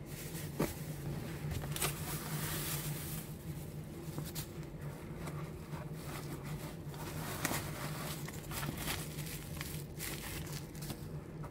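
Rustling and crinkling of plastic packing material and cardboard being handled as a shipping box is dug into and an inner carton lifted out, with irregular small clicks and scuffs.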